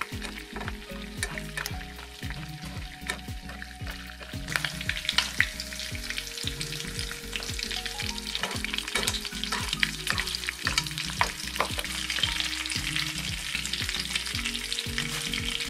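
Rockfish fillet sizzling in foaming melted butter in a nonstick pan, with a metal spoon scraping and clicking against the pan as it bastes the fish. The sizzle grows louder about four seconds in as the butter browns.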